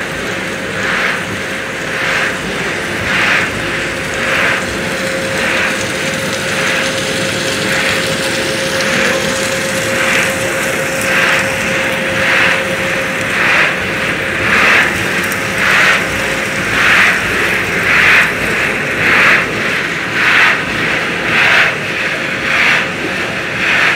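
Corn puff extrusion line running: a steady machine drone with a constant motor hum, and a rustling pulse about once a second that grows stronger in the second half, as the corn curls tumble in the rotating stainless-steel drum.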